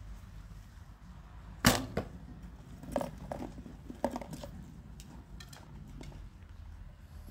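An arrow shot from a bow: one sharp, loud crack a little under two seconds in, with a short ring after it. Several fainter clicks and knocks follow.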